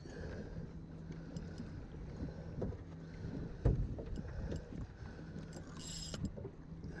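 Boat engine idling steadily with water sloshing against the hull, and a single thump about three and a half seconds in. A short hiss comes near six seconds.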